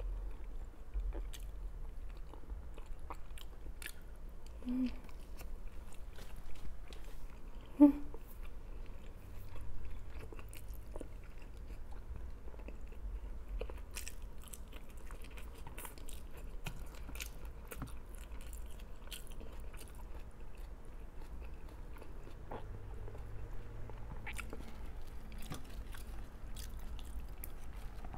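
A person biting and chewing food: rice and fresh greens eaten by hand, with scattered small crunches and mouth clicks. One brief, louder sound comes about eight seconds in.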